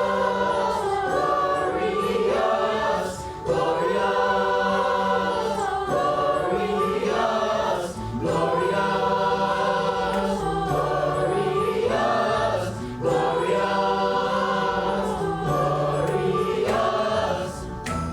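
Middle school chorus singing in parts, sustained sung phrases about five seconds each with short breaks between them.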